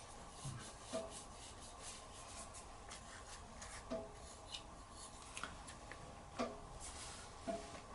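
Faint rubbing and handling of a carburetor vacuum slide and its rubber diaphragm, with a few soft knocks.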